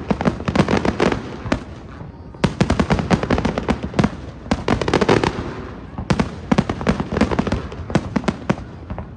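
Fireworks display going off: rapid clusters of bangs and crackling, in waves with a brief lull about two seconds in.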